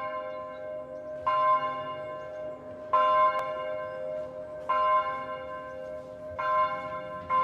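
A bell tolling: one pitch struck about every second and a half to two seconds, around five strokes, each ringing on and overlapping the next.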